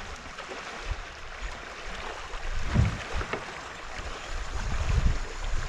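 River current rushing and lapping around a kayak hull, with wind buffeting the microphone as a low rumble that grows stronger toward the end. A couple of soft knocks come about halfway through.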